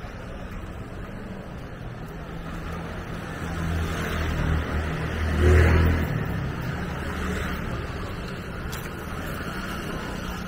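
Street traffic: a motor vehicle's engine hums steadily and swells as it passes close by, loudest about halfway through, then fades back.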